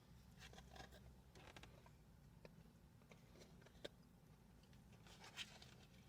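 Near silence with a few faint clicks and rustles of handling, a sharper tick about four seconds in.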